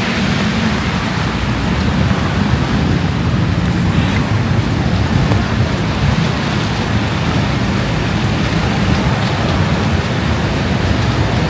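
Steady rumble of city road traffic mixed with the hiss of heavy rain.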